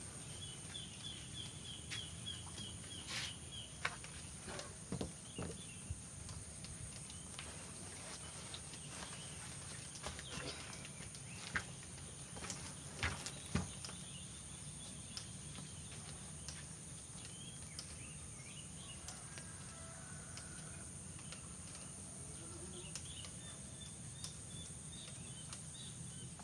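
Rice-paddy ambience: a steady high-pitched insect drone, with a rapid trill at the start and again near the end, and scattered faint clicks.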